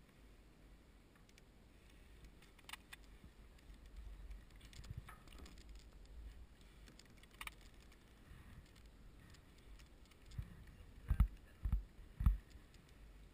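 Light clinking and clicking of handled metal gear, with a few dull thumps in quick succession near the end, over a faint low rumble.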